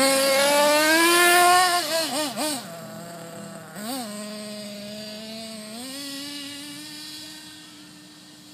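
Single-cylinder two-stroke glow engine (.32 size) of a 1/8-scale nitro RC truggy, revving up sharply as the truggy accelerates away. It rises in pitch for about a second and a half, blips the throttle several times, then settles to a steadier running note that fades as the truggy drives off.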